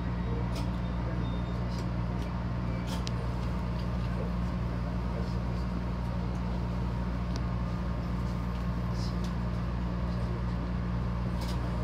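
Steady low hum of a JR East HB-E300 series hybrid diesel railcar standing still, its diesel generator engine idling, heard from inside the car, with a few faint clicks.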